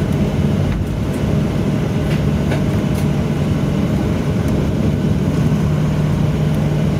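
Boeing 737-800 cabin noise as the airliner rolls along the runway: its CFM56 jet engines and wheel rumble make a loud, steady low roar with a steady low hum.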